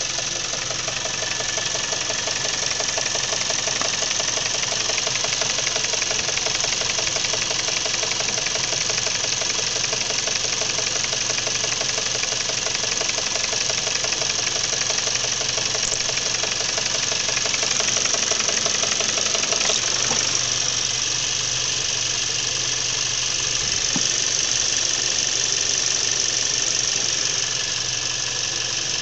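Haval F7's 2.0-litre engine running warm with a fast, even knocking. The owner puts the knock down to a fault in the variable valve timing (cam phasing) mechanism.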